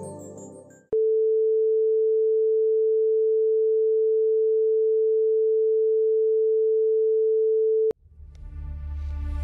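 Broadcast test tone shown with colour bars: a single steady pure tone that starts abruptly about a second in, holds unchanged for about seven seconds and cuts off. Music fades out just before it, and music with a low hum fades back in near the end.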